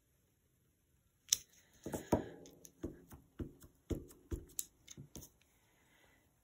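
Light taps and clacks of a clear acrylic stamping block and an ink pad being handled, about a dozen in quick irregular succession from about a second in until about five seconds in, as the pad is dabbed onto the stamp to ink it up.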